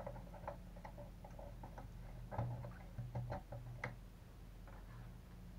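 Light, irregular clicks and taps of small hex drivers and plastic and metal parts being handled on an RC truck chassis during assembly, thinning out about four seconds in.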